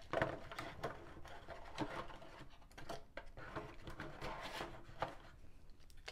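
Hands handling small metal 8-gram CO2 cartridges and a cardboard box insert: irregular light clicks and rustles.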